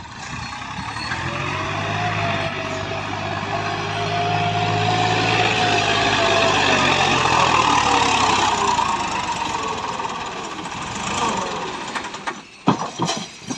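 Massey Ferguson 260 Turbo tractor's diesel engine labouring under heavy load as it hauls a loaded sand trolley up a slope, puffing black smoke. The engine note builds over the first couple of seconds and runs loud with a high whine that rises and falls. It fades away near the end.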